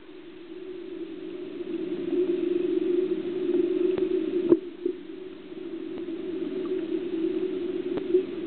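Underwater ambience picked up by a small camera: a steady, muffled low hum that swells and fades, with a few sharp clicks, two around four seconds in and one near the end.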